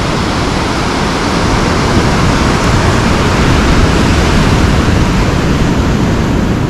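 Ocean surf breaking and washing up a sandy beach: a loud, steady rush of noise.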